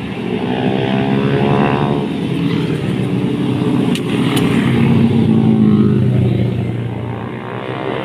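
Several small motorcycles ride past one after another, their engines revving and rising and falling in pitch as each goes by. The loudest pass comes about five to six seconds in.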